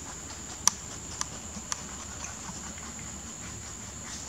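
Rabbit chewing leafy greens close up: crisp crunching clicks, three sharp ones in the first two seconds, then fainter and sparser.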